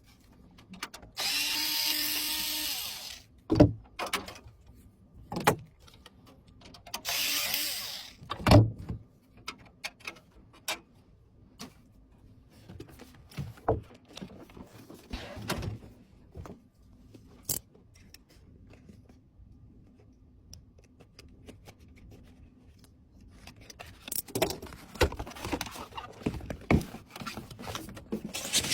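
Electric screwdriver driving screws into PC parts, running in two short steady bursts of about two seconds each. Sharp knocks and clicks of metal and plastic parts being handled come in between, with the loudest knocks just after each burst and a busier clatter near the end.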